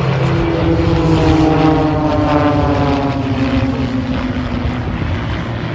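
Propeller airplane flying past, its engine and propeller tone falling steadily in pitch as it goes by.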